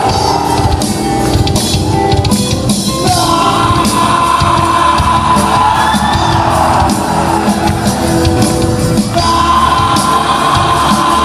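Loud rock song: a singer holding long notes over a full band of drums, bass and guitars, the voice dropping out for a moment about nine seconds in before a new held note.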